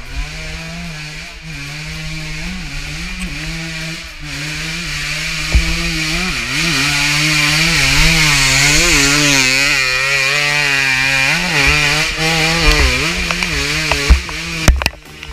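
Two-stroke dirt bike engine revving up and down over and over as it claws up a muddy slope. It grows louder as the bike comes close, is loudest about halfway through, and eases off near the end.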